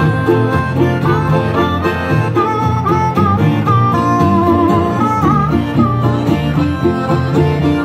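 Old-time jug-band style tune played live: a harmonica carries the melody in wavering held notes over strummed acoustic and archtop guitars and a plucked upright bass.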